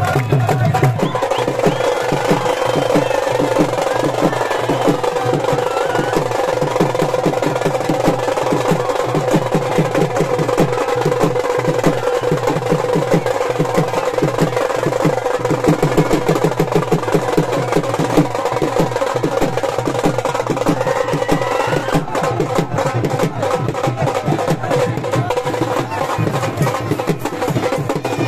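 Loud, rapid dhol drumming with music playing.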